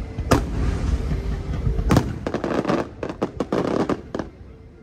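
Aerial fireworks: two sharp bangs, about a third of a second and two seconds in, then a quick run of crackling reports for about two seconds that dies away near the end.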